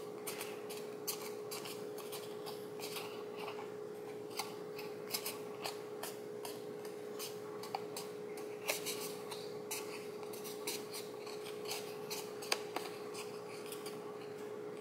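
Fingers pinching and bending the edges of a cardstock paper piece: faint, irregular crackling and rubbing of stiff paper, with a steady hum underneath.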